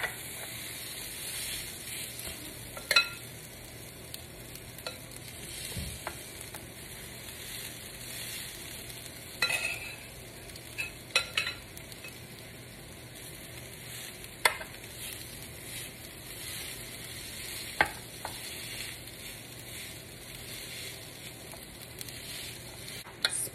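Food sizzling steadily on the hot plates of a waffle maker, with several sharp clicks and clinks of a utensil.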